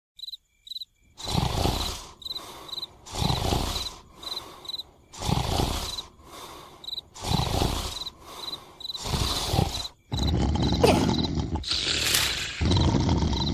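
Cartoon snoring sound effect: a loud rasping snore about every two seconds, each followed by a softer breath, over steady cricket chirping. From about ten seconds in the noise turns into one continuous loud rasp.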